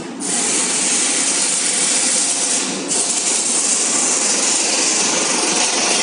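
Portable industrial spot air conditioner running, with a loud steady rush of air from its flexible cold-air duct that cuts in sharply, dips briefly about halfway through, and stops at the end. The machine's lower fan hum runs underneath.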